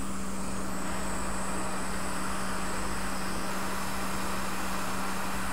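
Hot air rework station blowing a steady, even hiss with a low hum, heating a corroded capacitor on the logic board so it can be lifted off with tweezers.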